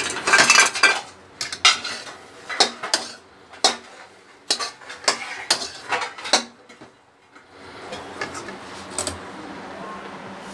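A perforated metal spatula scraping and clanking against a metal kadhai as a thick mash of potato and gram flour is stirred and gathered: a rapid series of metallic scrapes and knocks that stops after about six and a half seconds, leaving a faint steady hiss.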